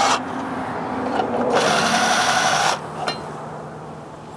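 Cordless drill spinning a socket to loosen the nuts on a car battery hold-down's J-bolts, running in spurts. The louder run lasts about a second in the middle, then the drill stops.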